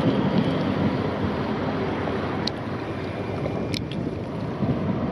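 Wind rushing over the microphone together with the wash of open water, a steady noisy rumble. Two faint high ticks sound about two and a half and four seconds in.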